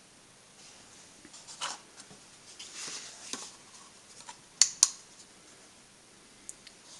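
Handling sounds at a milling machine with the spindle stopped: light rustling and scraping, then two sharp metallic clicks in quick succession about two-thirds of the way through.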